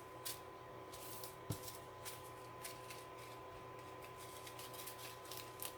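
Small plastic resealable bags of diamond painting drills being handled: faint crinkling and a scatter of light clicks and ticks, over a steady low electrical hum.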